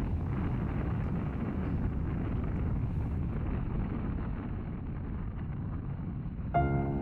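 Sea waves washing gently onto a beach, a steady low rush with wind buffeting the microphone. Soft piano music comes in near the end.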